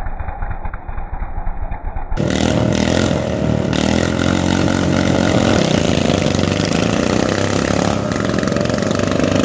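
Racing lawn tractor engines at full throttle as two machines launch and run down a grass drag strip. The engine noise is muffled and lower for the first two seconds, then jumps suddenly to a loud, steady engine note that climbs a little in pitch near the end.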